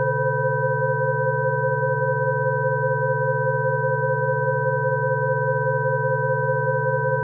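Synthesized Rife frequency tones: several pure electronic tones held steady together, with a low tone pulsing rapidly beneath four higher ones.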